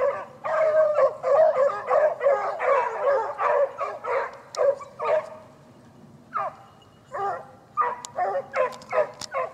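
A pack of beagles giving tongue together, many overlapping bays, as they work a scent line toward the game (the rapproché). The chorus breaks off a little after halfway, then single bays pick up again near the end.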